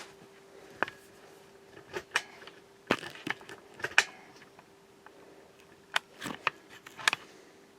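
Irregular sharp clicks and knocks from hands handling computer hardware, loudest around the middle and near the end, over a faint steady hum.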